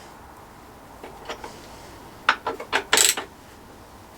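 A quick run of five or six sharp metallic clicks and clinks about two seconds in, the loudest near the end, from metal tools and fittings being handled while a rack bolt is tightened.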